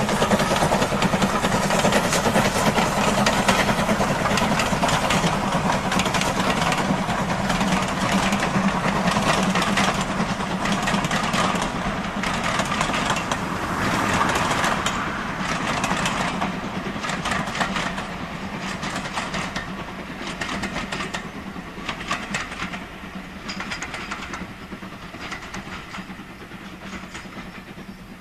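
LMS Ivatt Class 4MT 2-6-0 steam locomotive hauling a rake of teak coaches past and away, its steam working and the coaches' wheels clicking over rail joints. Loud at first, it fades steadily as the train recedes into the distance.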